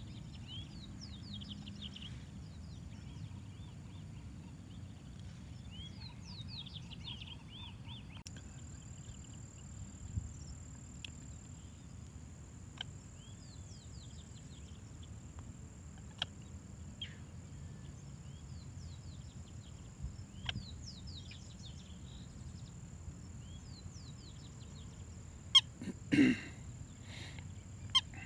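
Small birds chirping repeatedly over a low steady outdoor rumble. Near the end come a few sharp clicks and one brief loud call.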